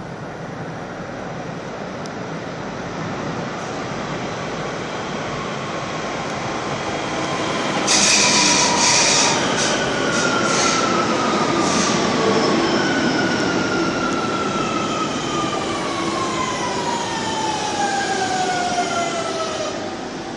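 Metro train pulling into an underground station. The rumble builds, a sudden loud high squeal comes about eight seconds in, and then a whine falls steadily in pitch as the train brakes.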